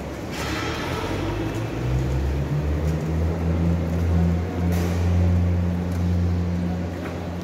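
Metal airport luggage trolleys rolling across a tiled floor: a steady low rumble that builds as they get moving, with a couple of brief rattles.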